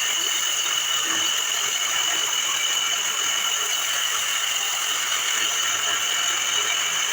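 Power tool with a DeWalt blade cutting heavy steel angle iron: a steady, high-pitched grinding whine that holds at an even pitch and level throughout.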